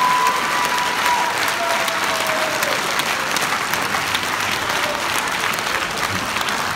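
Concert hall audience applauding: dense, steady clapping from a large crowd.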